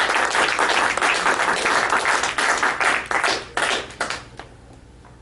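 Audience applauding, the clapping thinning to a few last claps and stopping about four seconds in.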